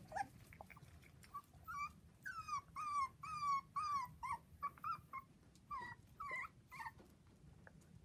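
Four-week-old dachshund puppy whimpering: about a dozen short, high, falling cries, about two a second, dying away about a second before the end.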